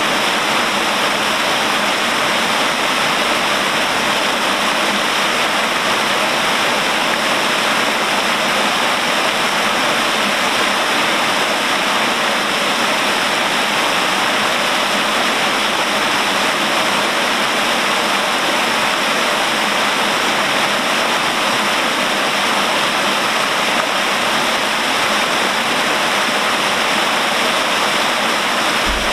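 Water pouring in a continuous curtain from a wooden flume bridge and splashing onto the river surface below: a loud, steady rushing splash.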